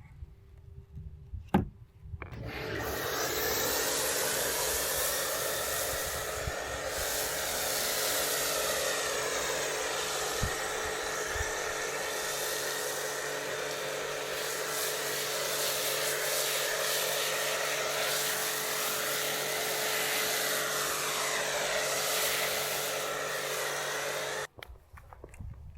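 An electric detailing machine runs steadily with a motor hum and a hiss. It starts about two seconds in and cuts off sharply about a second before the end.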